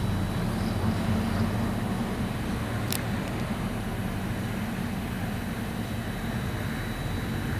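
Steady low rumble of distant engine noise, with a faint steady high tone above it and a single sharp click about three seconds in.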